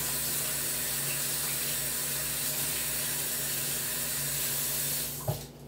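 Kitchen sink faucet running in a steady stream, shut off about five seconds in, with a brief knock just after.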